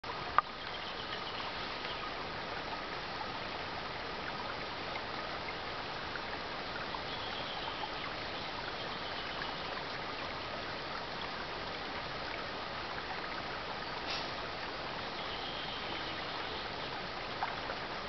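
Shallow mountain stream babbling steadily over stones, with a sharp click about half a second in.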